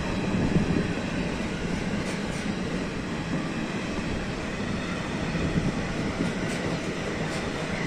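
Double-deck car-carrier freight wagons rolling past at close range: a steady rumble of steel wheels on the rails, with a few light clicks.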